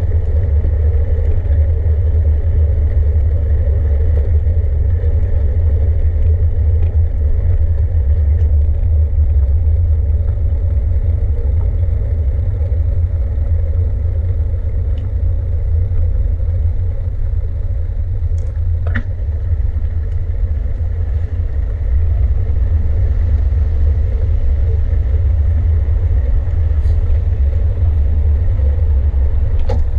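Steady low rumble of riding a bicycle along city streets: wind and road noise picked up while riding, with a few faint clicks, the clearest about two-thirds of the way through.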